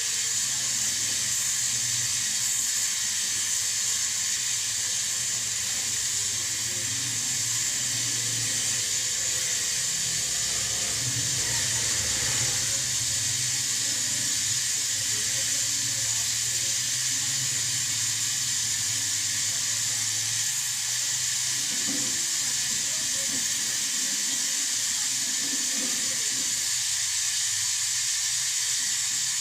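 A steady hiss at an even level.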